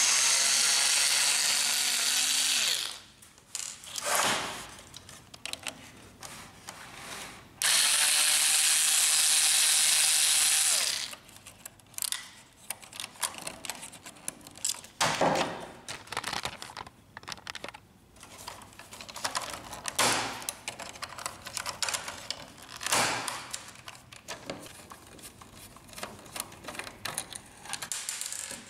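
A small cordless electric screwdriver runs twice for about three seconds each, backing screws out of an inkjet printer's main board. After that come scattered short clicks and knocks of handling.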